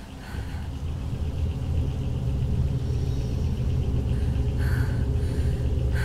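Low rumbling drone of a horror film score, swelling about a second in and holding steady. A soft higher pulse returns near the end, repeating about twice a second.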